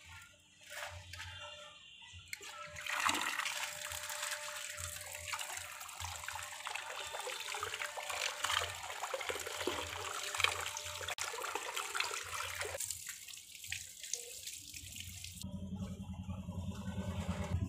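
Water splashing down over a cluster of bangles hanging on a holder and into a basin below, rinsing off the soap suds. It starts about three seconds in and stops about thirteen seconds in.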